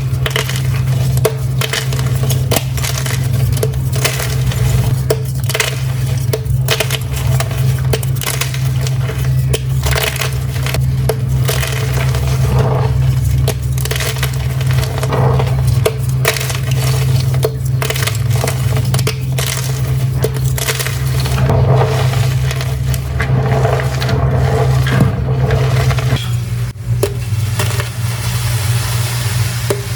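Dyed gym chalk being crushed: a dense run of dry crunches and crumbling crackles, over a steady low hum.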